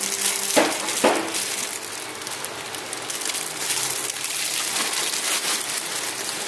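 Layered raisin-and-cheese bread roll being torn apart by hands in thin plastic gloves: a steady crackle and crinkle, with two sharper tears about half a second and a second in.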